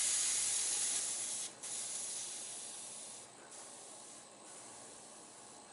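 Butane hissing out of a Flaminaire F12 pipe lighter's filler valve as the tank is bled empty. The hiss starts loud and fades steadily, with brief breaks about a second and a half in and again around three and four seconds.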